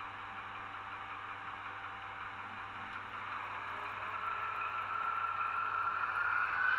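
H0-scale model freight wagons rolling along the track with a steady rushing rattle. From about four seconds in, the model locomotive's whine rises slowly in pitch and grows louder as it draws near.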